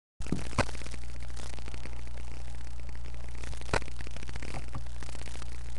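Steady electrical hum and hiss from a webcam microphone, with a few sharp clicks and knocks as someone moves about right next to the computer.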